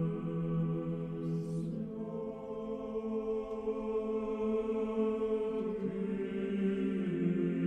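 Slow choral chant: several voices holding long sustained notes, the chord moving to new pitches every few seconds.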